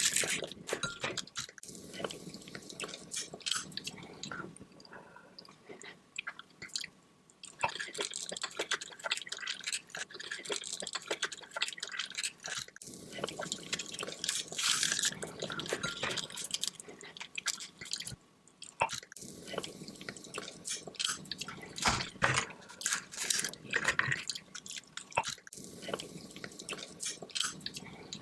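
Close-miked eating sounds: irregular wet clicks of chewing and smacking, with dripping, squishing butter sauce as sauce-coated seafood is handled and bitten.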